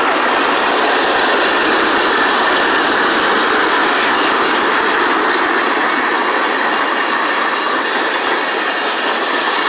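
Empty coal train cars rolling past at close range: a steady, loud noise of steel wheels running on the rails, with some clickety-clack over the rail joints.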